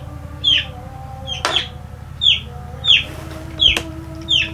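A bird, likely a chick, peeping in a steady rhythm: a short, high, falling note about every two-thirds of a second, over a steady low hum. A single sharp click sounds near the end.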